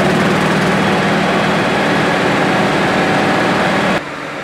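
Newspaper printing press line running, a loud steady machine din with a low hum as the papers stream along the delivery conveyor. The noise drops suddenly to a quieter level of the same kind of machine running about four seconds in.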